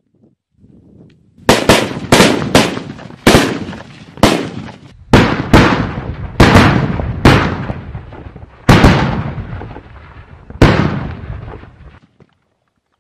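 Small green cylindrical firecrackers going off one after another: about a dozen sharp bangs at uneven intervals over some nine seconds, each trailing off briefly.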